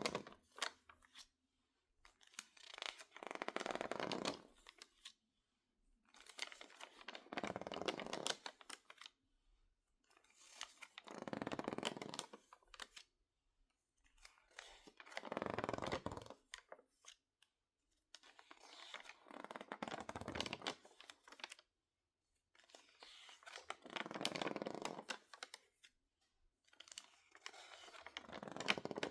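Crinkling and crackling of stiff, water-damaged magazine pages being turned or squeezed by hand, in about seven separate swells a couple of seconds long, each followed by a short pause. The pages were misted with water and dried, which makes them cockled and crisp.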